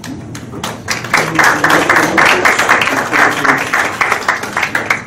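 Audience applauding: a few scattered claps at first, quickly building to dense, loud clapping that thins out near the end.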